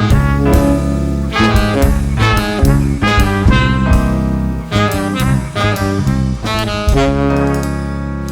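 Jazz band playing a swing tune: saxophone and brass over bass and drums, with regular drum strokes. From about seven seconds in, the horns hold long notes.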